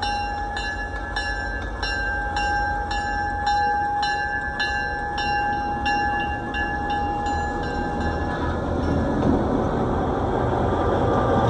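A bell rings in even strokes about twice a second alongside a steady tone while an EMD GP9 diesel locomotive is near; both stop about eight seconds in. The locomotive's low engine rumble then grows louder toward the end.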